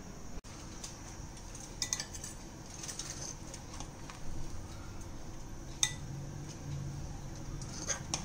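A spoon clinking and scraping against a non-stick pan as cooked biryani rice is dug into and lifted, with a few sharp clinks scattered over the scooping.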